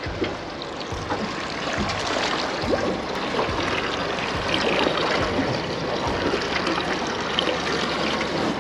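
Water lapping and trickling against the side of a boat's hull, a steady wash of small splashes.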